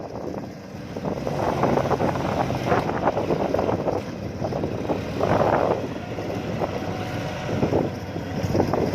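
Combine harvester's diesel engine running steadily, with wind buffeting the microphone in swells.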